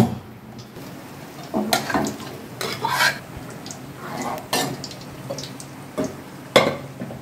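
Steel ladle clinking and scraping against a metal cooking pan while mashing and stirring boiled dried peas in thick simmering gravy. The clinks come at irregular intervals.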